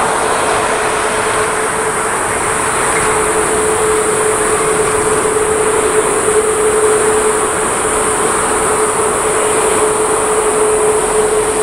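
Boeing 787-10's Rolls-Royce Trent 1000 turbofan engines at low thrust while the airliner taxis, a steady rushing noise with a steady whine.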